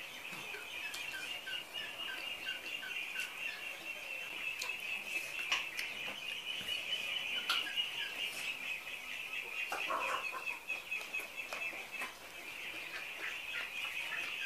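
Steady high-pitched chirping in the background, with a bird's quick string of about eight short falling call notes in the first few seconds. Scattered sharp clicks and smacks of hand-eating and chewing.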